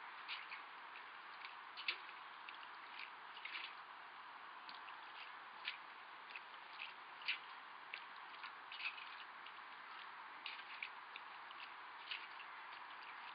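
Small water drips and light splashes from a dipper being worked in a pond, heard as scattered quick ticks over a faint steady hiss.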